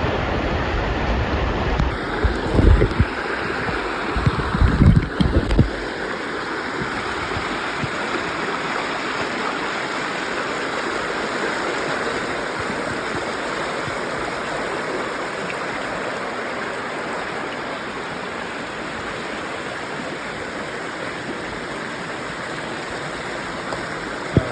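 Steady rushing of a waterfall and stream water pouring over rocks. A few low booming knocks on the microphone come in the first few seconds.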